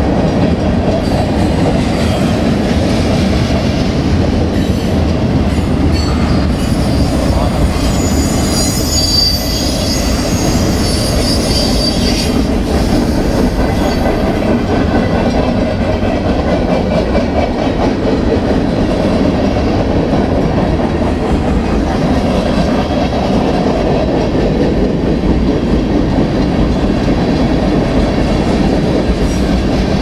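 Freight train cars rolling past at speed: a loud, steady rumble of steel wheels on rail with clickety-clack over the joints. A high wheel squeal sounds from about seven to twelve seconds in.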